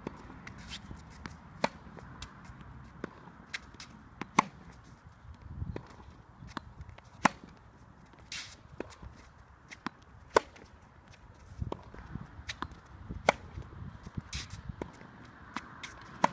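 Tennis rally on a hard court: sharp pops of the ball coming off the racket strings about every three seconds, with softer ball bounces and shoe scuffs and footsteps between them.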